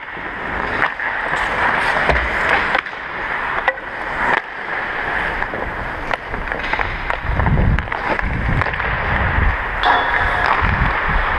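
Ice hockey skate blades scraping and gliding on rink ice, with several sharp clicks of hockey sticks against pucks in the first few seconds. Low rumbling bursts come in from about halfway through.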